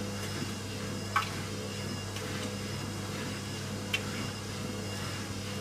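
Indesit 860B washing machine running with a steady low hum, with a sharp click about a second in and another near four seconds.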